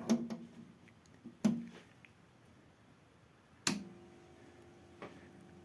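A few sharp knocks and clicks with a short metallic ringing, from handling the old overhead projector's metal body and its switches. After a click about two-thirds in, a steady low hum starts and keeps going as the projector is powered up.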